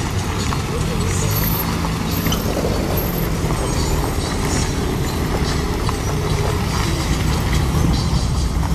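Several motor trike engines running as the trikes pull away one after another at walking pace, a steady low rumble.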